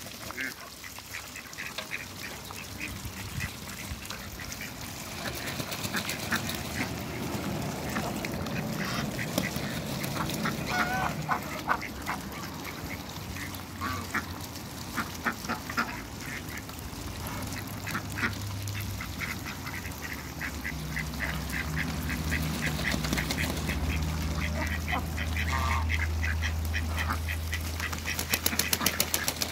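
Flock of domestic ducks, Muscovies among them, quacking now and then while dabbling their bills in shallow puddles, making rapid wet clicking and chattering. A low steady hum comes in about two-thirds of the way through.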